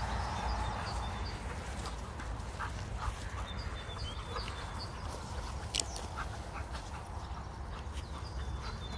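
Dogs running and playing on grass: scattered short breaths and rustles under a steady low rumble, with no barking.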